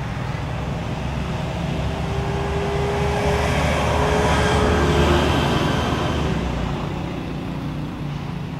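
A motor vehicle passes by: engine and road noise grow louder to a peak about four to five seconds in, then fade away, with a whine that drops slightly in pitch as it passes.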